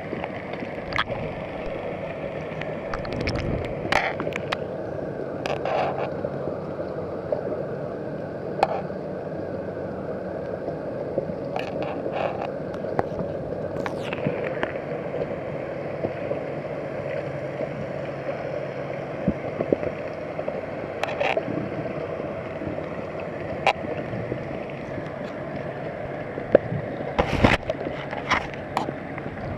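Underwater sound at a submerged camera: a steady, muffled rush of water with scattered sharp clicks and knocks, several close together near the end.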